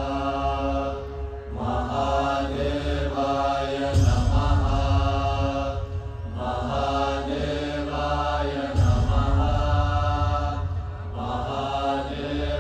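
Devotional mantra chanting set to music: a chanted vocal phrase repeats every two to two and a half seconds over a heavy, deep bass that swells about four seconds in and again near nine seconds.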